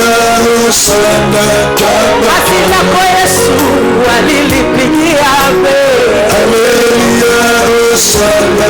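Loud worship music with singing: held, wavering sung notes over a steady instrumental backing.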